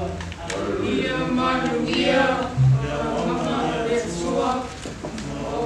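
A group of voices singing together, with a held low note dying away right at the start and a brief low thump about two and a half seconds in.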